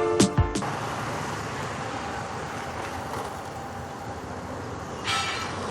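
Background music cuts off about half a second in, giving way to steady road traffic noise. A brief, brighter noise from the traffic comes near the end.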